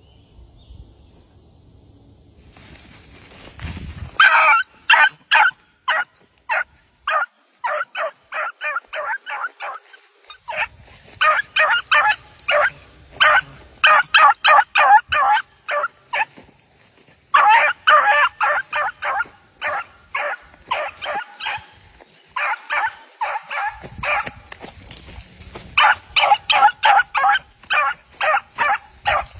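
Beagles yipping in quick runs of short, high cries, about two or three a second with brief pauses between runs, starting about four seconds in. This is the hounds giving voice as they chase a rabbit.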